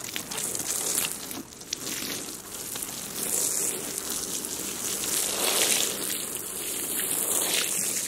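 Water spraying onto loose bare soil: a steady hiss of falling droplets that swells twice, about three and a half and five and a half seconds in.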